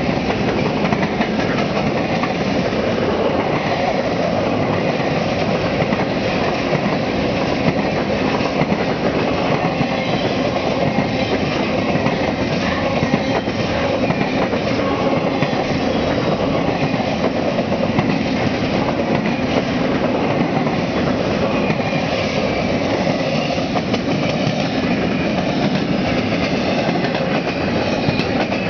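A long string of empty intermodal well cars on a Union Pacific freight train rolling past at speed. Steel wheels make a steady rolling noise on the rail, with a continual run of light clicks.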